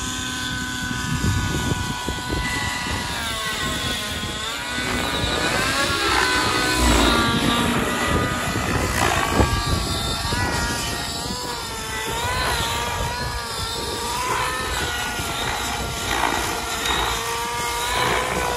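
Gaui NX7 radio-controlled helicopter flying 3D aerobatics: a steady whine from its drivetrain and rotor whose pitch wavers up and down with each manoeuvre, with bursts of rushing noise as the blades load up in flips.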